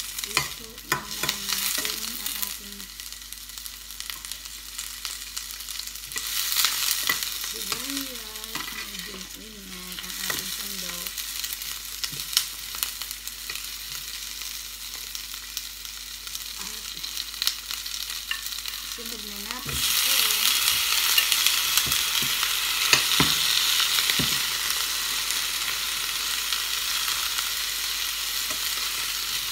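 Chopped red onion and garlic frying in oil in a stainless steel pan, sizzling, with a metal spoon clinking and scraping against the pan as it stirs. About two-thirds of the way through, the sizzle turns much louder and brighter as whole shrimp go into the hot oil.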